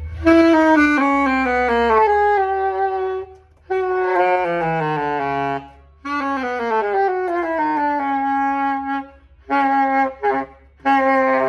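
Yanagisawa 901 saxophone played loud in three runs of notes, each stepping down in pitch, then two short bursts of notes near the end. This is a pre-service play test of a horn whose pad keys have regulation and seating problems and leaks in the stacks.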